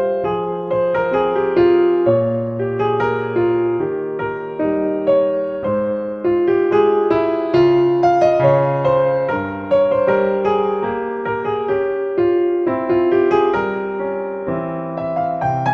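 Background piano music: a melody over chords, each note struck and left to die away.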